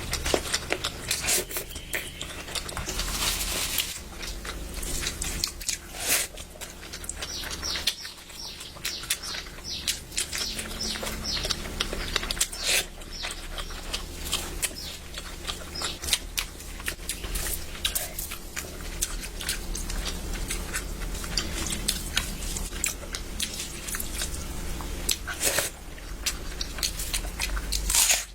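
A person chewing and smacking while eating curry, a close, irregular run of wet mouth clicks and smacks.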